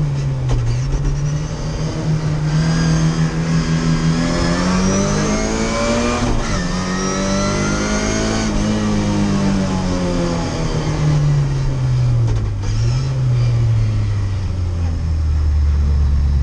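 Lada 2107 Group A rally car's four-cylinder engine heard from inside the cabin, revving hard through the gears with a quick drop in revs about six seconds in at a gear change. After that the revs fall away as the car slows, settling into a low steady note near the end.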